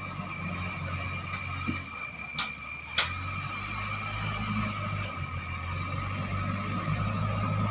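JCB 3DX backhoe loader's diesel engine running steadily with a constant high-pitched whine, and two sharp metallic clicks about two and a half and three seconds in.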